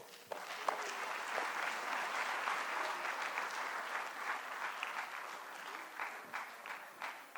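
Audience applauding, many hands clapping together, then thinning to a few scattered claps near the end.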